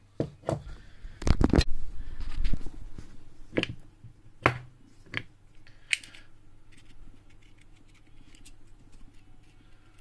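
Handling noise from an old steel and brass lock with its key inserted: a few sharp metallic clicks and knocks over the first six seconds, with a heavier run of dull bumps between about one and three seconds in.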